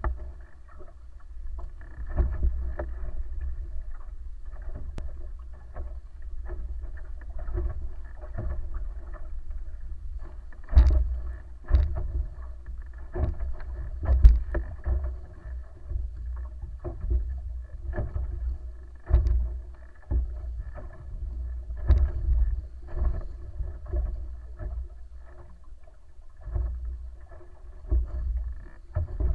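A wooden outrigger sailing canoe moving under sail, with water rushing and splashing along its hull and float over a steady low rumble. Irregular knocks and slaps come through, the loudest about 11, 14, 19 and 22 seconds in.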